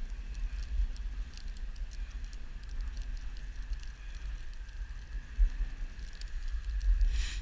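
Dog sled running over packed snow behind a team of sled dogs: a steady low rumble from the runners and the ride shaking the mounted camera, with light scattered ticks and patter from the dogs' paws and the harness. A short rush of noise comes near the end.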